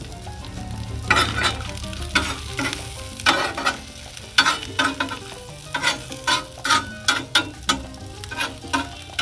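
Steel griddle spatula scraping and pushing fries across the flat-top of a Blackstone 22-inch griddle, over a steady sizzle of the potatoes frying. The scrapes start about a second in as quick repeated strokes, coming closer together in the second half.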